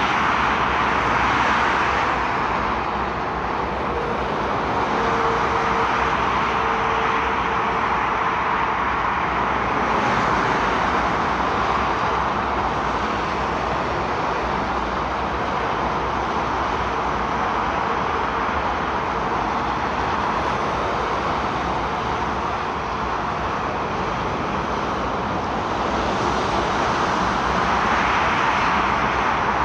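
Motorway traffic: a continuous rush of tyres and engines from cars and lorries passing at speed, swelling as heavier groups of vehicles go by.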